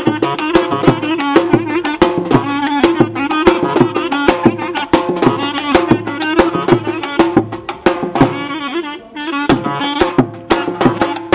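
Live folk band music: a clarinet plays an ornamented, wavering melody over a steady, loud drum beat.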